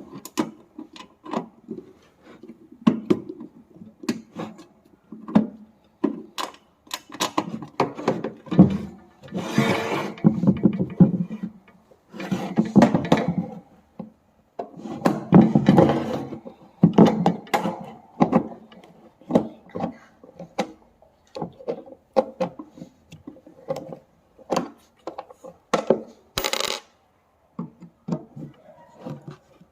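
Hands working on the parts of an electric room heater with tools: irregular clicks, clinks and knocks of metal and plastic pieces, with a few longer stretches of scraping and rattling.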